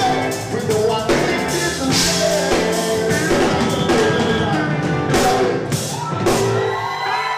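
Live rock band playing with drum kit, guitar and vocals; a few loud crashes land in the last couple of seconds, and the drums stop near the end while held notes ring on.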